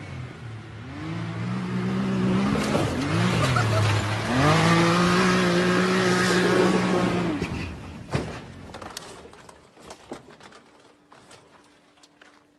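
Off-road vehicle engine revving hard: the pitch climbs, dips briefly about three seconds in, then is held high for a few seconds before the throttle comes off. A sharp knock follows about eight seconds in, then fainter clicks and knocks.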